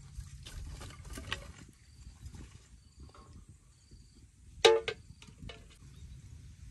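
Hands handling dry firewood, husk and a steel wok: rustling and small knocks, then one loud, short clang about two-thirds of the way through as the wok is moved off the stove. A low rumble of wind on the microphone runs underneath, with faint short high chirps now and then.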